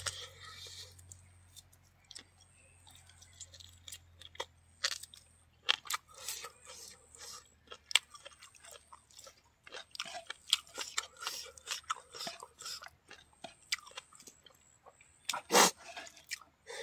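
A person chewing a mouthful of rice, meat and vegetables eaten by hand, with irregular crunches and crackles and one louder crunch near the end.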